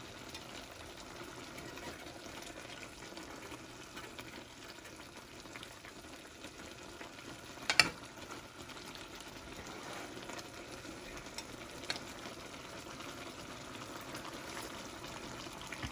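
Squash, long beans and eggplant sizzling steadily in a pan with a little shrimp-paste broth. A spoon clinks sharply against the pan once about eight seconds in as the vegetables are stirred, with a fainter knock a few seconds later.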